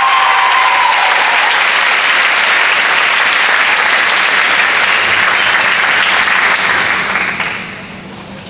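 Audience applauding in a hall, the clapping dying away about seven and a half seconds in.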